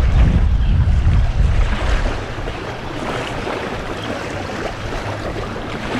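Strong wind buffeting the microphone in heavy gusts, easing about two seconds in, over wind-driven waves churning and splashing.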